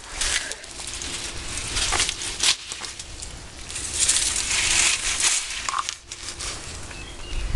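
Plastic sand-toy scoop scraping and scooping on the ground: a run of irregular scrapes and clicks, with a longer, louder scrape about four seconds in.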